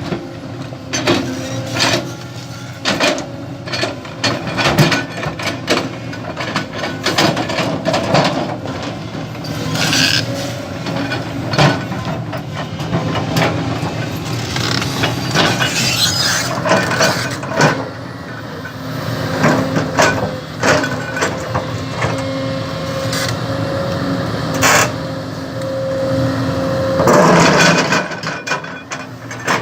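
A heavy construction machine running under work, its engine going steadily while metal knocks and clanks come again and again, with some brief hissing rushes.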